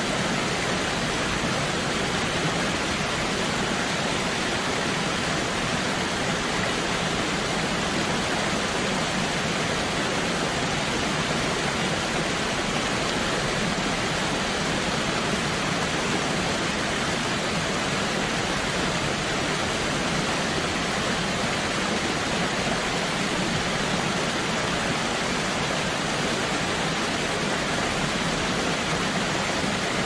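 Huay Mae Khamin waterfall: the steady, even rush of falling water, with no change in level.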